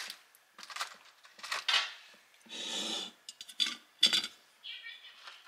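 Metal tongs placing round crackers into a glass jar: a handful of light clicks and clinks of tongs and crackers against the glass, with a brief rustle about halfway.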